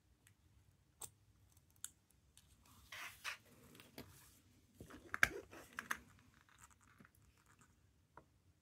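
Thin clear plastic film crinkling and rustling as it is peeled off a wristwatch movement, loudest about five seconds in. A few light clicks come before and after.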